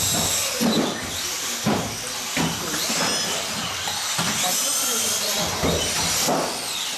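Several 1/18-scale electric off-road RC cars racing, their motors whining up and down in pitch as they speed up and slow down, with scattered knocks and clatter.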